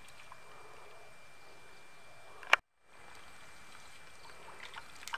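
Faint water dripping and splashing off a bamboo lift net as it is raised from the river, over a steady thin high hum. About two and a half seconds in, a sharp click and a brief dropout to silence where the video is cut.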